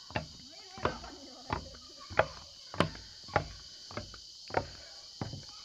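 About nine sharp knocks, evenly spaced at roughly one every two-thirds of a second, over a steady high insect drone.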